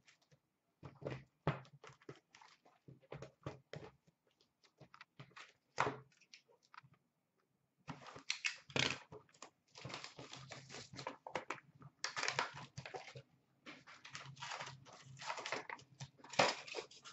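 Cardboard boxes of trading cards being set down with scattered light knocks, then, from about eight seconds in, a sealed box being torn open with a steady crinkling and tearing of its plastic wrap and cardboard.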